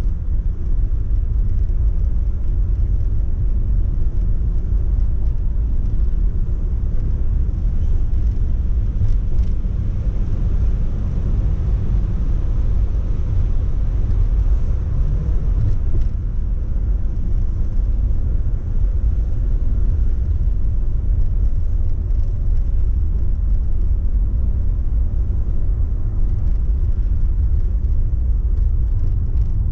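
Steady low rumble of a Mercedes-Benz car driving along, heard from inside the cabin: road and engine noise.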